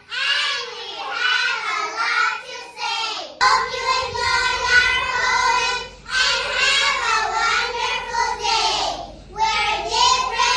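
Young children singing a song, in held, gliding notes with short breaks between phrases.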